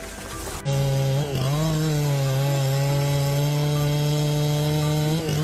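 Chainsaw running at high revs while cutting wood, starting abruptly just under a second in. It holds a steady pitch, with a brief dip in pitch about a second after it starts and again near the end as the saw takes load.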